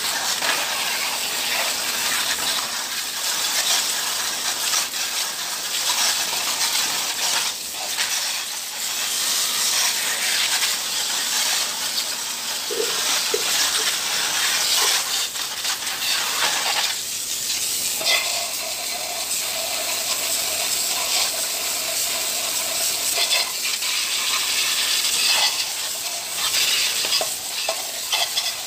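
A jet of water from a hose spraying the dusty exhaust-fan grille, fan blade and wet floor: a steady hissing spatter. A steady tone joins about two-thirds of the way through.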